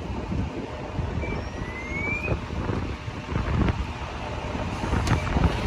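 Wind buffeting the microphone over the rumble of street traffic, with a few sharp clicks and a brief faint rising tone about two seconds in.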